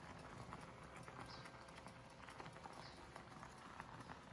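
A monkey sucking milk from a baby bottle: faint, quick, irregular clicking and smacking at the nipple, with a short soft hiss about every second and a half.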